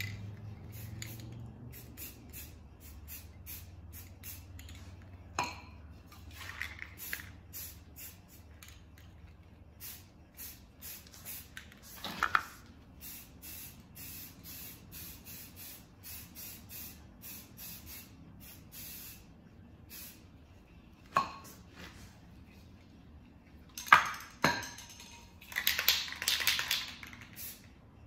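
Aerosol spray paint can (Rust-Oleum camouflage spray) spraying in many short hissing bursts as a freehand camo pattern is laid on, with a longer spray near the end. A few sharp knocks and clicks fall in between.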